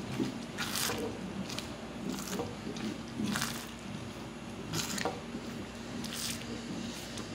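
Thick boiling pumpkin jam stirred in a pot with a spoon: wet, squelching scrapes about once a second.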